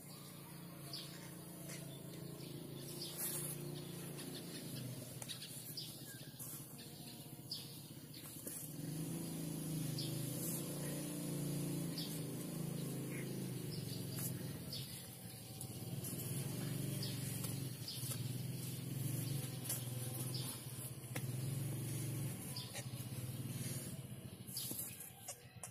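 Outdoor ambience: a low engine hum of passing motor vehicles that swells and fades twice, with birds chirping now and then.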